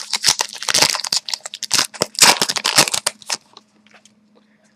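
Foil wrapper of a trading card pack being torn open and crinkled: a dense run of sharp crackles that stops about three and a half seconds in.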